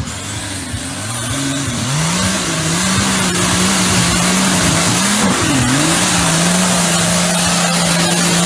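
Off-road SUV's engine revving hard and held at high revs as it powers through deep mud with the wheels spinning, the engine note dipping briefly about two-thirds of the way in. A rising rush of mud and water spray thrown up by the tyres runs under it.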